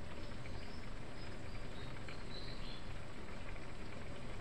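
Vegetable stew in broth simmering in a non-stick frying pan: a steady bubbling hiss with a few brief high-pitched squeaks.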